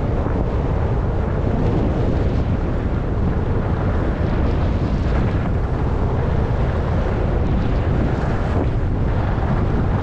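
Steady wind rumble on the microphone of a skier's moving camera during a downhill glide, with the hiss of skis sliding over snow swelling now and then.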